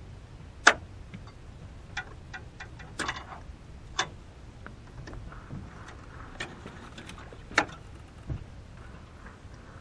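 Scattered sharp clicks and knocks as a small fish is swung aboard a boat and unhooked, loudest twice, once near the start and once about three-quarters through, with a dull low thump near the end.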